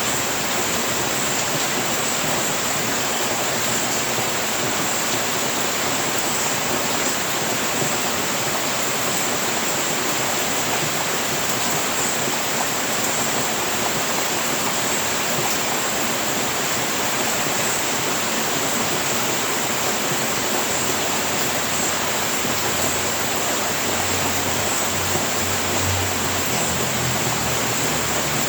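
Steady heavy rain falling, a constant even hiss.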